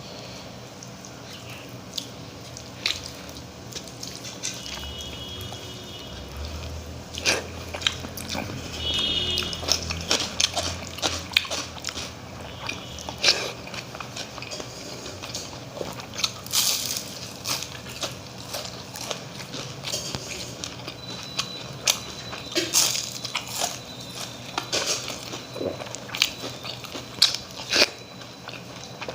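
A person eating close to the microphone: irregular crisp crunches from biting into crunchy food, with chewing in between.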